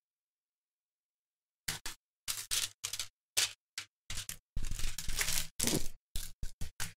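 Crinkling and rustling of a diamond-painting canvas and its clear plastic cover film being handled, in a run of short, irregular crackly bursts starting a couple of seconds in.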